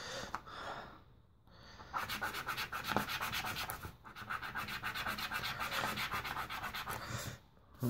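A coin scraping the coating off a Swisslos Subito scratch card in rapid back-and-forth strokes: a short scrape at first, then steady scratching for about five seconds with a brief break midway.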